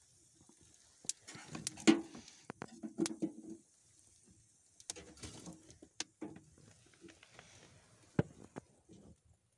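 Plastic sheeting rustling in broken bursts, with scattered sharp clicks and knocks; the loudest knocks come about two seconds in and again about eight seconds in.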